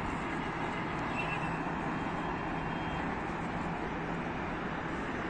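Steady outdoor background noise: a constant rushing hum with no distinct events.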